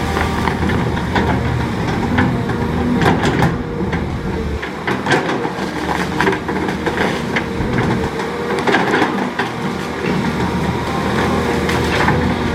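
Cat 320C excavator's diesel engine running steadily, with many sharp cracks and knocks over it as the machine works against the tree.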